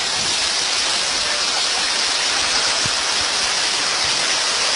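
Heavy downpour: a loud, steady hiss of rain falling on a flooded street, with water running across the road.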